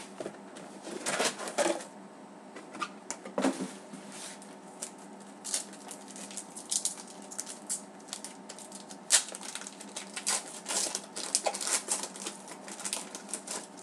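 Hockey trading cards and their pack wrapper being handled: a run of quick, irregular crackles, rustles and light clicks as the pack is opened and the cards are flicked through.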